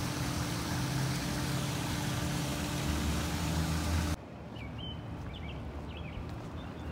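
Outdoor ambience: a steady mechanical hum with hiss that cuts off abruptly about four seconds in, replaced by quieter open-air background with a few short bird chirps.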